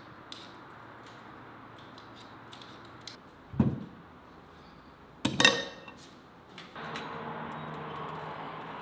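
Small clicks of a hand peeler working a potato, then a knock and a louder clatter with a brief ring as peeled potatoes and a knife go into a bowl. Near the end a steady outdoor background noise sets in.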